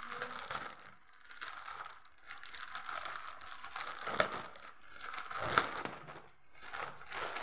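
Plastic mailer bag crinkling and rustling as it is handled and pulled open by hand, in irregular spells with a couple of sharper crackles past the middle.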